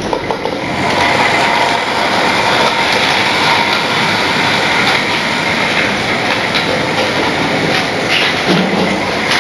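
Model Flying Scotsman locomotive running around a model railway track: a steady running noise from the model train on its rails, growing louder about a second in.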